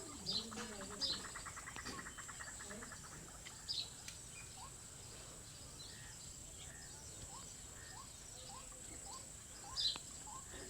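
Birds chirping, with a rapid buzzing trill in the first three seconds and short rising calls repeating about twice a second through the second half, over a steady high-pitched whine.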